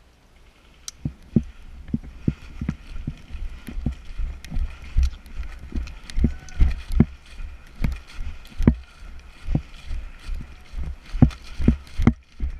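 Footsteps of a person walking briskly on outdoor ground, about two steps a second, starting about a second in, each step a dull thump with a low rumble of the body-worn microphone jolting.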